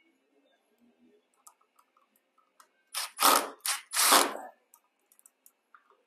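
Cordless drill/driver running in four short bursts, driving the mounting screws of a duplex receptacle into a metal electrical box. Faint clicks come first, then the bursts about three seconds in, all over within under two seconds.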